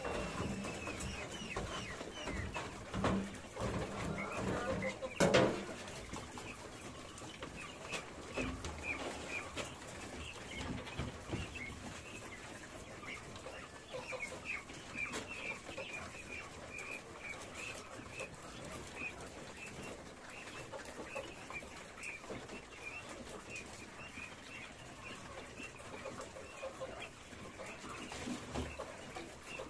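Caged quail calling with many short, high, repeated chirps. A few knocks sound over them in the first few seconds, the loudest about five seconds in.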